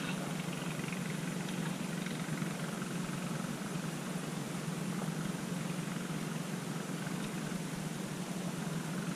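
An engine running steadily: a continuous low drone under an even hiss.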